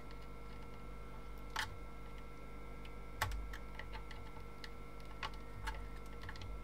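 Scattered small clicks and taps of an internal wiring connector being handled and pushed home into its socket on a circuit board, the sharpest about one and a half and three seconds in, over a low steady hum.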